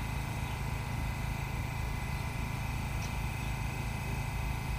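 A stationary R68 subway car humming steadily, with a constant low drone and a faint steady high whine from its onboard equipment.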